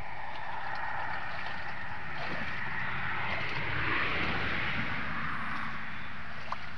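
Shallow muddy water sloshing as hands feel about in it, a steady rushing noise that grows louder about four seconds in.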